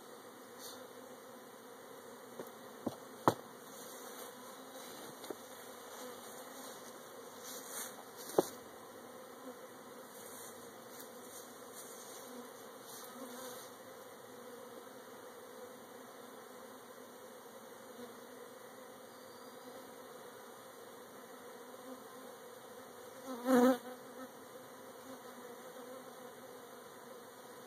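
Honey bees buzzing steadily around a hive entrance: a newly installed cutout colony settling into its hive. Two sharp clicks come in the first ten seconds, and a louder buzz swells briefly about three-quarters of the way through.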